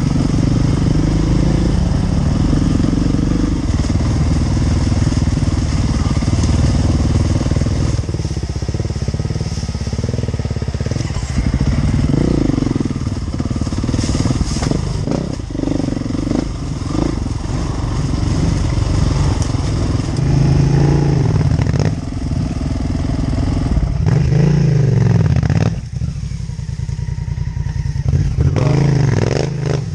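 Off-road motorcycle engine running under constantly changing throttle on a rough trail, swelling and easing off again and again.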